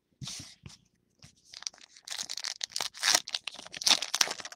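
Foil wrapper of a baseball card pack being torn open and crinkled: a brief rustle, a pause, then about three seconds of dense crackling that is loudest near the end.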